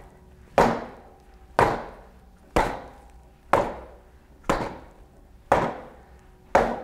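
Gloved punches landing on the padded boxing panel of a LifeSpan Cycle Boxer, which sits on impact-absorbing bumpers: a steady rhythm of about one hard hit a second, each a sharp knock that dies away quickly.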